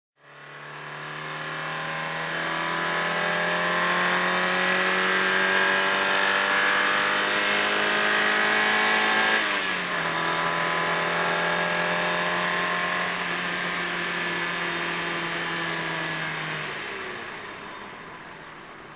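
Opel Calibra 16v 4x4's four-cylinder engine pulling hard under throttle, its pitch climbing slowly. About halfway through comes a quick upshift, where the pitch drops. It then pulls steadily again before easing off and fading over the last few seconds, leaving road and wind noise.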